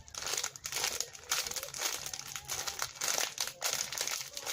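Plastic crinkling in dense, irregular crackles as squishy toys and their packaging are handled.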